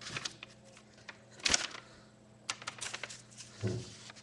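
Folded-paper popper rustling and crinkling in the hands as it is set up: a few short, crisp paper rustles and clicks, the loudest about a second and a half in, and a duller thump near the end.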